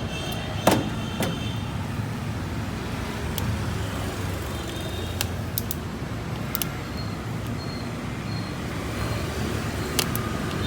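Steady low rumble of road traffic, with a few sharp clicks and knocks scattered through it, the loudest just under a second in.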